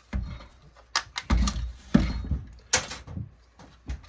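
A series of knocks and clunks from a touchscreen control panel's casing being handled and turned over on a work surface, about half a dozen separate hits, the loudest around the middle.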